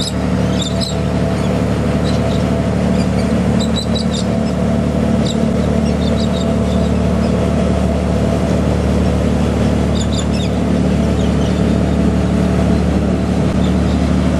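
A boat engine running at a steady low drone, over a constant wash of water noise, with short high bird chirps now and then.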